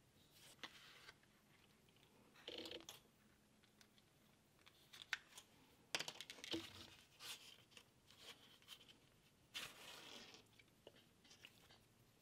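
Faint rustles and scrapes of thread being drawn through a leather card holder piece by hand, in a few short swishes, with small clicks as the leather and needle are handled.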